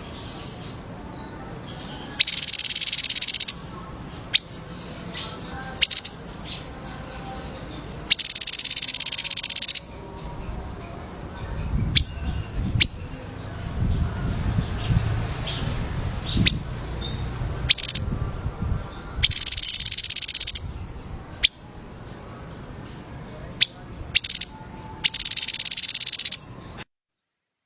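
Recorded songbird song: sharp single high chirps, with four loud high trills of about a second and a half each. The sound stops abruptly near the end.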